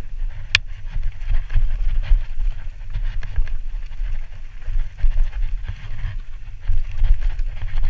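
Mountain bike descending a dirt singletrack, heard from a helmet camera: the bike and tyres rattle and clatter over the bumpy trail under a constant rumble of wind on the microphone. One sharp click comes about half a second in.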